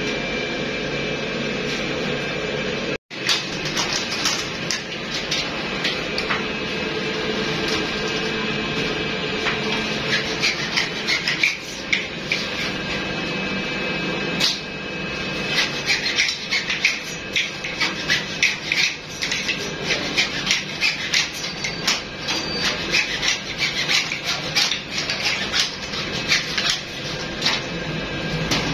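Long PVC conduit pipes clattering, tapping and rubbing against one another and a metal rack as they are handled, in many quick irregular clicks over a steady factory machine hum.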